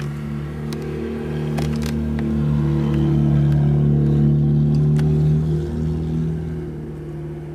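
A car engine running with a steady low hum that grows louder toward the middle and then eases off, with a few sharp clicks over it.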